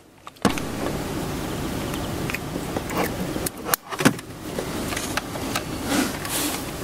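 A car engine running steadily, with a few sharp clicks from parts being handled in the engine bay. The running noise starts suddenly about half a second in and drops out briefly near the middle.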